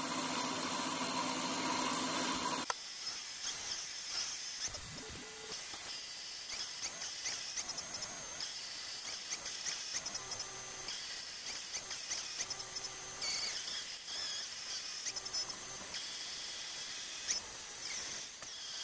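Proxxon MF70 micro mill, driven by a brushless outrunner motor, milling an aluminium plate: loud, with a steady whine, for about the first two and a half seconds. Then it drops abruptly to a much quieter hiss with faint high-pitched scraping for the rest.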